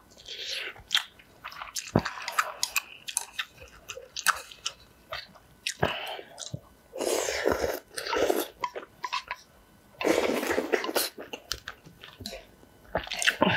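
Close-miked eating of spicy instant ramen noodles: wet chewing and mouth clicks throughout, with two longer slurps about seven and ten seconds in.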